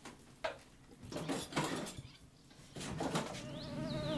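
A few sharp clinks and knocks in small clusters, then a fly starts buzzing about three seconds in, a steady drone with a wavering whine.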